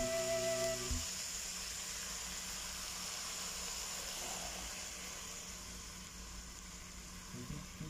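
Sautéed buffalo meat and vegetables sizzling in a pot as coconut milk is poured in, a steady hiss that fades toward the end.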